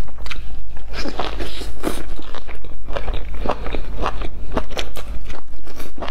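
Biting and chewing a flatbread sandwich stuffed with fried sausages: a steady run of short crunches, several a second.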